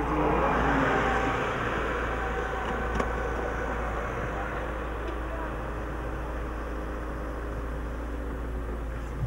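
A car passes close by on the road and drives away, its noise swelling and then fading over the first couple of seconds. After that a steady engine hum and road noise continue, with a single click about three seconds in.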